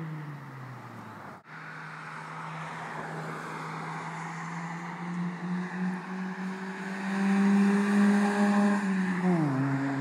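2003 Honda Civic EX coupe's D17A2 1.7-litre four-cylinder, breathing through an uncatted DC 4-2-1 race header and an Invidia catback, driving toward and past: a steady exhaust note that grows loudest as the car nears and drops sharply in pitch as it goes by near the end. A brief cut in the sound comes about a second and a half in.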